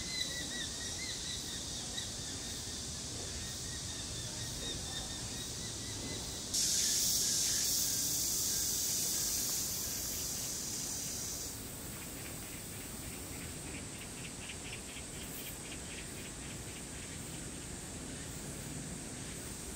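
Insects droning in a high-pitched chorus over steady outdoor background noise. The chorus comes in suddenly about six and a half seconds in and drops back a few seconds later. A bird's chirps fade out at the very start.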